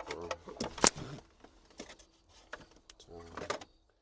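Cables and plastic connectors being handled and fitted, giving an irregular run of sharp clicks and taps, loudest about a second in.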